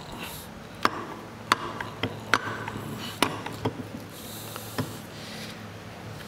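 Steel shaft and its gears being worked out through a lathe quick change gearbox casting: about seven sharp metal clicks and clinks spread over a few seconds, with a couple of brief scraping rubs, over a steady low hum.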